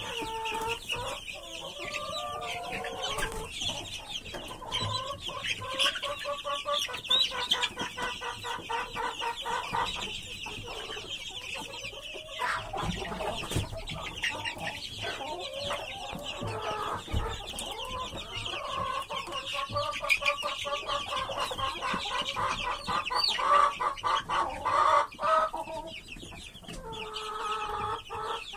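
A brooder flock of four-week-old chicks peeping continuously in a dense chorus of high peeps, with lower, pulsed calls rising out of it now and then.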